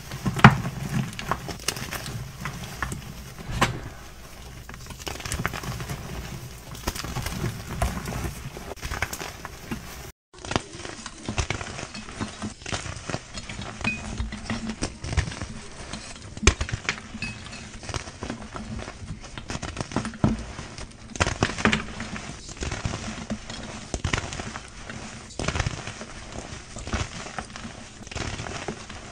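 Gym chalk blocks crushed and crumbled by hand into loose chalk powder: irregular crunches and crackles with a few louder snaps. About ten seconds in the sound cuts out for a moment, then the crunching resumes.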